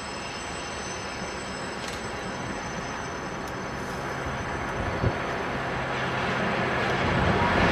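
A V60 diesel shunting locomotive hauling a container train, its engine and the running wheels on the rails growing steadily louder as it approaches. A faint high wheel squeal sounds in the first few seconds, and a single sharp knock comes about five seconds in.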